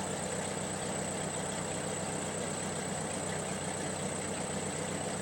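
Ford 8N tractor's four-cylinder engine idling steadily.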